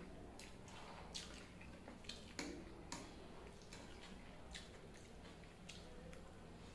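Faint eating sounds: noodles being chewed and slurped, with sharp clicks at irregular intervals from a steel fork against a steel plate, over a low steady hum.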